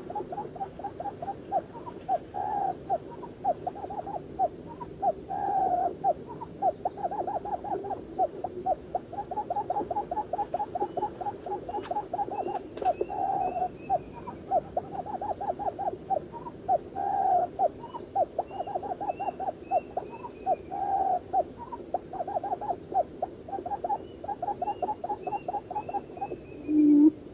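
Birds calling: a fast, steady run of short repeated notes, with a higher series of falling notes breaking in three times.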